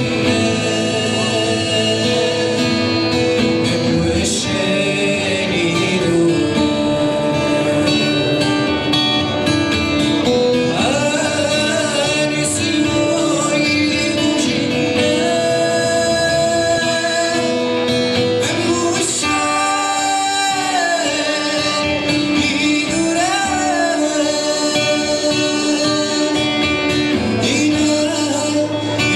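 A man singing a song solo, accompanying himself on an acoustic guitar, with a steady melody over the guitar throughout.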